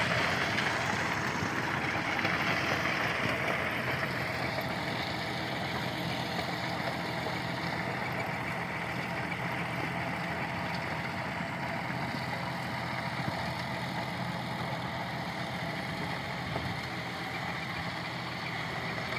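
Tractor engine running steadily while it works a field with a rotavator, gradually fading as it moves away.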